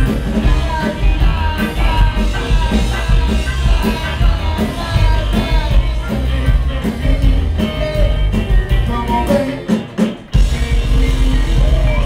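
Live reggae band playing, harmonica over electric guitar, upright bass and drums. About ten seconds in the band drops out for a moment, then comes back in.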